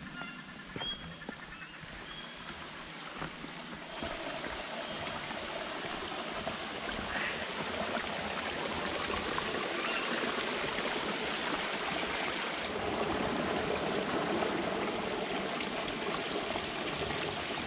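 Creek water trickling and splashing over sandstone rock ledges in small cascades, growing louder about four seconds in. A few short bird chirps sound in the first second or two.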